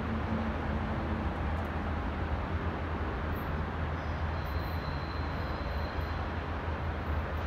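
Metrolink train led by an F125 diesel locomotive approaching from a distance: a steady low rumble under constant noise. A faint thin high tone comes in about halfway through.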